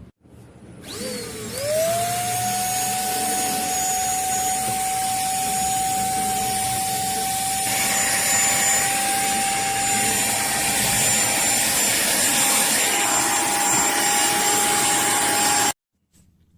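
Simplus 400 W lightweight vacuum cleaner switched on: its motor spins up with a rising whine about a second in, then runs at a steady high whine over a strong rush of suction air. The air noise brightens about halfway through, and the sound stops abruptly near the end.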